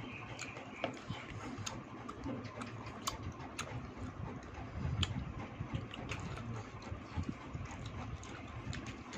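Close-up eating sounds: wet chewing and lip smacks, with many small irregular clicks.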